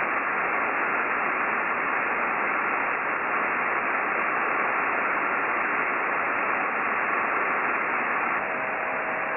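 Icom IC-9700 receiving SSB on the CAS-4A linear transponder with no station talking: a steady, thin radio hiss. Faint steady whistles from carriers sit in it; near the end a higher whistle stops and a lower one begins.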